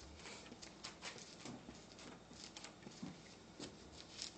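Faint paper rustling: Bible pages being leafed through to find a passage, a run of soft short rustles and ticks.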